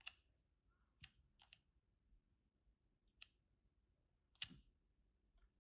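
Near silence broken by about five faint, sharp clicks and taps, the loudest a little past four seconds in: a small 1:64 diecast toy car being handled.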